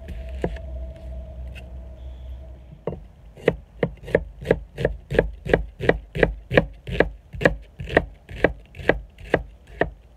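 Chef's knife cutting an onion on a wooden cutting board: one cut about half a second in, then from about three seconds in a steady run of about three chops a second as the blade strikes the board. A steady low hum sits under the first three seconds.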